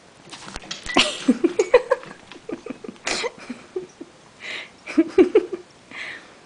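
African grey parrot making soft, whiny baby-like sounds: a string of short wavering squeaks, with a few breathy hisses and small clicks between them.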